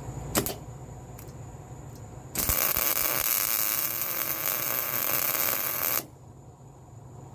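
A click, then a few seconds of electric arc welding: a steady crackling hiss that starts and cuts off abruptly as a bead is run to join the bed-frame steel to the clamp bar.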